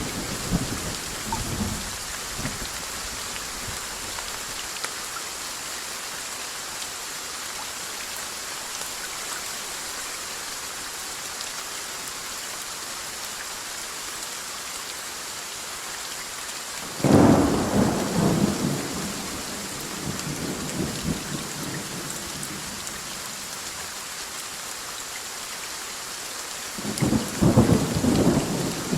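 Steady rain falling, with thunder. A rumble fades out in the first couple of seconds, a sudden loud thunderclap breaks about halfway through and rolls on for several seconds, and another rumble builds near the end.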